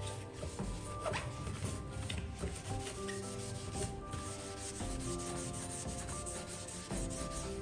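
Sponge scrubbing a chrome faucet and ceramic sink basin, a steady run of short rubbing strokes, with background music underneath.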